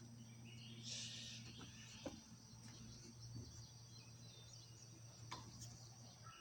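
Quiet outdoor background: a steady high insect drone over a low hum, with a brief rustle about a second in and a couple of faint clicks.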